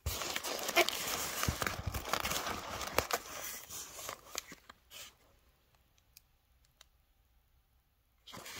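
Plastic bubble wrap crinkling and crackling as it is handled and pulled aside, for about four and a half seconds, then a few faint clicks and a short rustle near the end.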